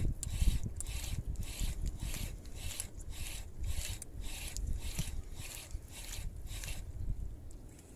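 Fishing reel being cranked quickly to bring in a hooked fish: a rhythmic rasping whir, about three to four strokes a second, that stops near the end, over a low rumble.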